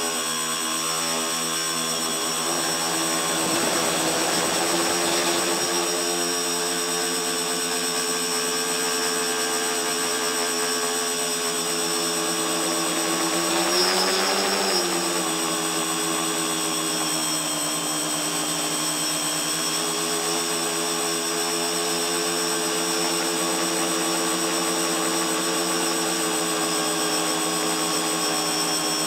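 A tricopter's three motors and propellers whining steadily in flight, heard from the camera on board. About halfway through, the pitch rises and falls briefly with a change of throttle.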